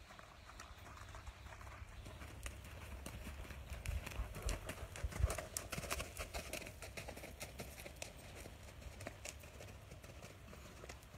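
Hoofbeats of a ridden American Paint Horse mare on soft arena dirt, a steady rhythm that grows louder as she passes close by about five seconds in, then fades as she moves away.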